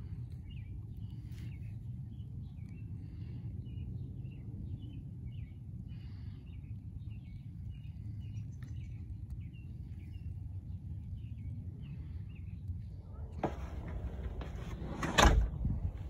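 Small birds chirping faintly in short repeated notes over a steady low rumble, with a loud rustling knock about a second before the end.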